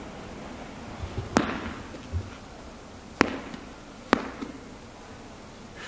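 Medicine ball slammed onto the floor three times, each a sharp hit about a second or two apart, followed by a short echo.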